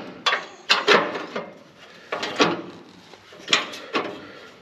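Steel clamp and hook pieces knocking and clinking against the slotted steel drum of a cutting rotor as they are fitted into its slots by hand: a string of sharp, irregularly spaced metal knocks.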